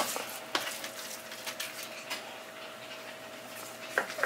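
Hands rubbing dry seasoning into a raw pork leg on a metal tray: soft, moist rubbing with a few light taps, over a faint steady hum.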